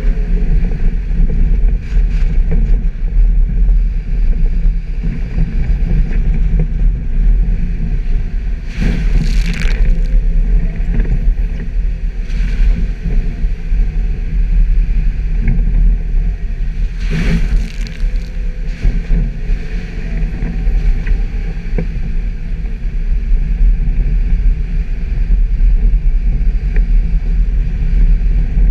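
Suzuki Jimny driving off-road: a steady low rumble of the vehicle, with two short louder rushes of noise about nine and seventeen seconds in.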